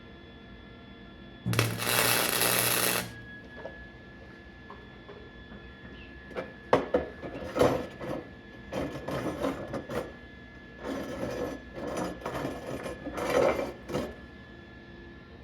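Arc welding on scrap steel: a steady, loud welding hiss for about a second and a half near the start, then a string of short crackling welds and tacks, each lasting under a second.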